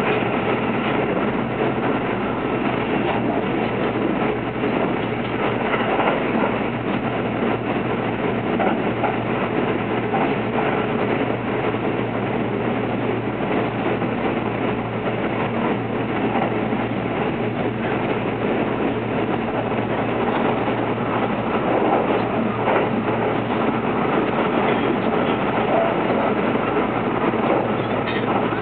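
Kintetsu 22600 series 'Ace' limited express electric train running at speed, heard from inside the passenger cabin: a steady rumble of wheels on rails with a faint steady hum underneath.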